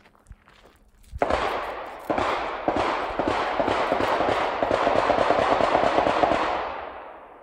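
Machine-gun fire: long salvos of rapid automatic shots that start suddenly about a second in, run on for several seconds, and fade away over the last second.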